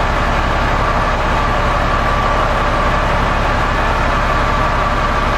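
MMZ common-rail diesel engine of an MTZ/Belarus tractor idling steadily at about 700 rpm. A steady whine sits over the engine's running noise.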